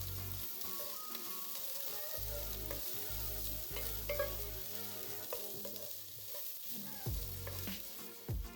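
Food sizzling as it fries in butter in a pot, with a spoon stirring and clicking against the pot now and then.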